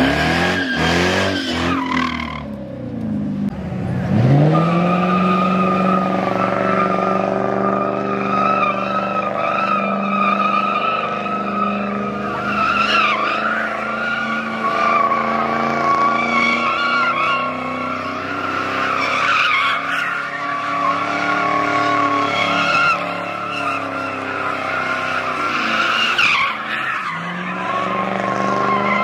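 A car sliding with its rear tyres spinning, engine held at high revs and tyres squealing without a break. The revs drop and climb back about four seconds in.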